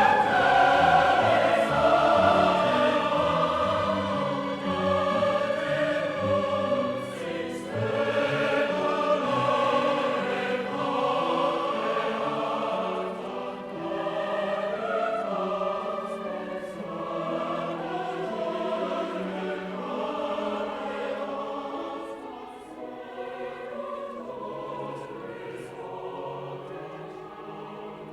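Mixed chorus singing with symphony orchestra, loud at first and then gradually growing quieter.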